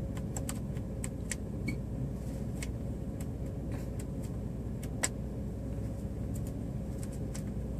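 Steady low hum of a Jeep Liberty heard from inside the cabin, with scattered faint clicks and one sharper click about five seconds in.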